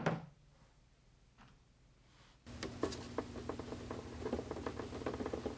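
A single sharp knock right at the start, then about two and a half seconds in a paintbrush starts scrubbing and stirring watercolour paint in a plastic palette well, a rapid patter of small ticks as it mixes the colours into a dark gray.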